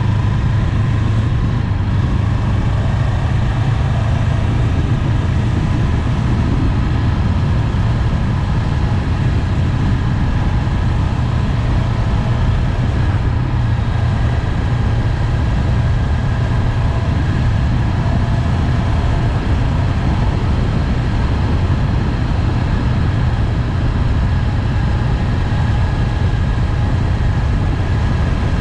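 Honda 400X motorcycle's parallel-twin engine running steadily under way, with a steady low rumble of wind and road noise.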